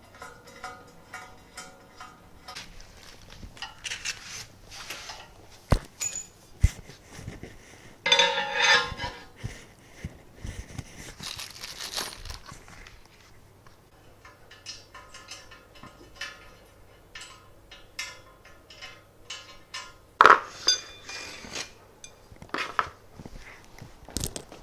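Hard parts being handled and set down: scattered clinks, clicks and knocks, with a few louder thuds and some rustling.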